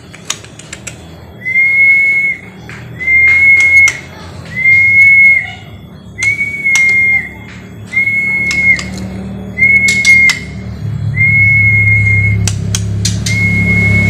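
A person whistling the same flat, steady note about eight times, roughly one and a half seconds apart, to coax a caged bird, with sharp clicks in between. A low rumble swells over the last few seconds.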